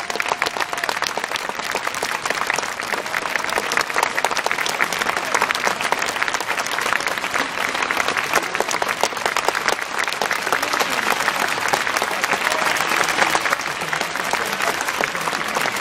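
Stadium crowd applauding steadily, many hands clapping without a break.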